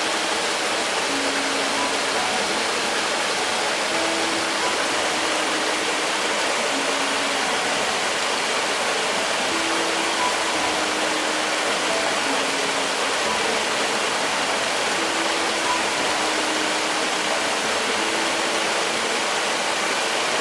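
Mountain valley stream rushing and splashing over rocks, a steady, dense water noise, with soft sustained musical notes faintly underneath.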